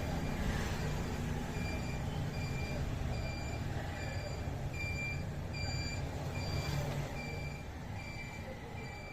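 Electronic beeper sounding a short, high beep about every 0.8 seconds, steady and evenly spaced, over a low rumble that eases off near the end.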